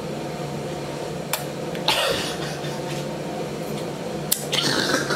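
A man's short cough-like breath about two seconds in and breathy bursts near the end, with two sharp clicks between them, over a steady low hum.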